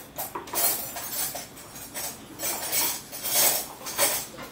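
Cutlery scraping and clinking against a plate in a run of irregular strokes, about eight over the few seconds.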